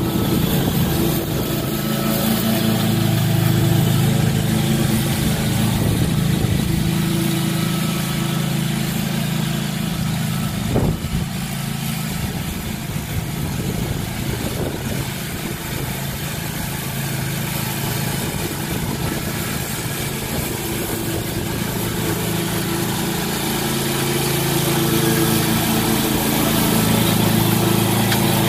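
SCAG commercial walk-behind mower's engine running steadily while mowing, growing fainter as the mower moves away through the middle and louder again as it comes back near the end.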